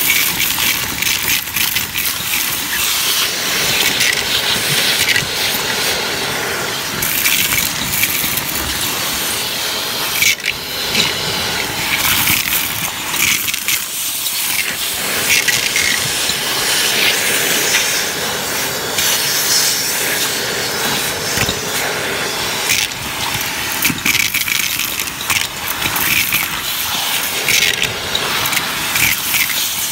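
Shark vacuum running, sucking small hard debris (coins, beads, pebbles, bits of rubber tubing) off cardboard through its wand. There is a steady rush of air, with constant crunching and rattling clicks as the pieces are pulled up the tube.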